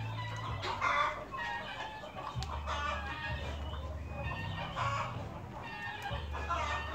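Chickens clucking in short repeated calls, over a low steady hum that shifts in pitch every second or so.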